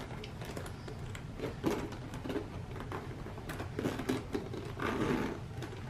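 The metal zipper of a Louis Vuitton Nice BB vanity case is pulled open around the case in a series of short rasping pulls with brief pauses between them.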